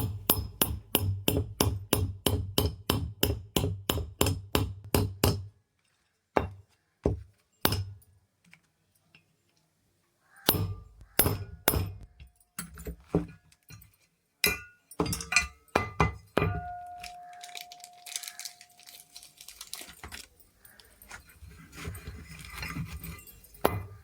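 A hammer tapping on metal, quick evenly spaced blows at about four to five a second for five seconds, then a few single knocks. After a pause come scattered knocks and metallic clinks, a brief steady ring, and light handling noise.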